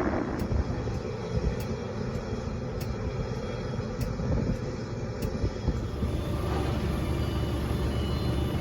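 Low, steady rumble of a jet airliner's engines, heard from a distance, with faint ticks above it.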